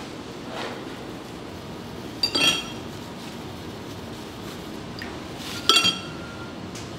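Hard tableware clinking twice, each a quick cluster of ringing clinks, about two seconds in and again near the end, over a steady background noise.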